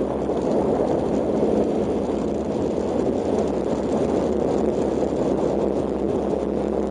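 Kawasaki KLX125's single-cylinder four-stroke engine running steadily as the trail bike rides along a gravel track, mixed with rough noise from the tyres on gravel.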